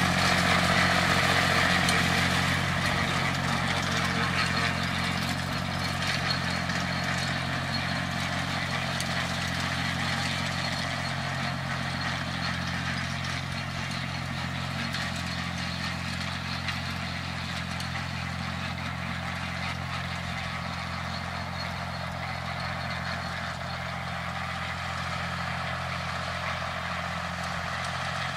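Fordson Dexta tractor's three-cylinder diesel engine running steadily while pulling a haybob tedder through cut hay, growing fainter over the first ten seconds or so as the tractor moves away, then holding steady.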